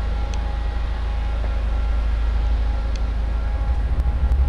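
Steady low mechanical rumble with a faint, steady high whine over it.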